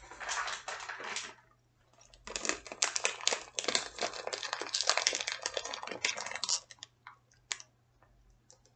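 Clear plastic snack bag crinkling close to the microphone, in a short burst and then a longer one of a few seconds, followed by a few light clicks.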